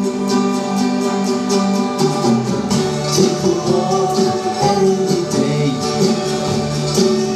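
Instrumental intro of an acoustic pop song: a guitar strummed in a steady rhythm, with the chords changing every second or two.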